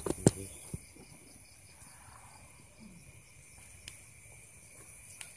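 Night insects trilling steadily in two continuous high tones, one shrill and one lower, with a few sharp knocks in the first second.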